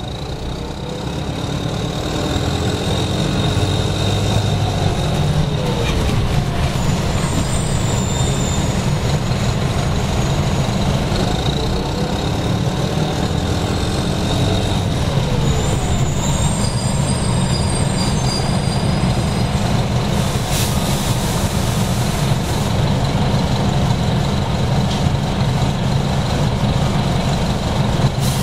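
1996 NovaBUS RTS-06 transit bus under way: its Detroit Diesel Series 50 diesel engine runs with a heavy low drone while the Allison V-Drive transmission gearing whines. The whine rises and falls in pitch several times as the bus gathers speed and slows. The uploader takes this gearing noise as a sign of a worn bus on its last legs.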